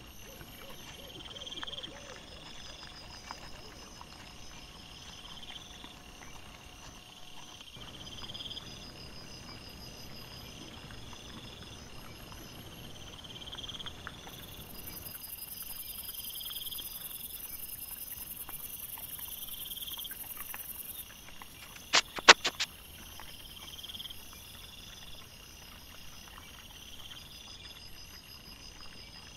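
Night insects chirping in a high, steadily repeating pattern. About three quarters of the way in comes a quick run of sharp knocks, the loudest sound here.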